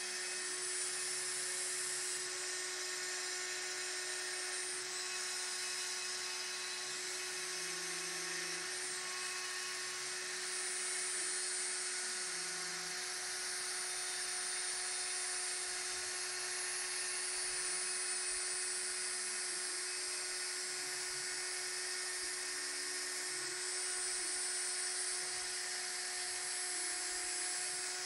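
Proxxon milling-motor spindle on a homemade gantry CNC router running at high speed and cutting into a thin wooden sheet: a steady high-pitched whine with cutting noise. Faint lower tones shift in pitch now and then.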